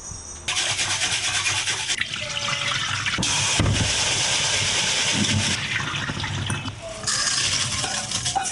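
Kitchen tap water running into a stainless steel bowl as rice is rinsed in it, with short breaks in the flow.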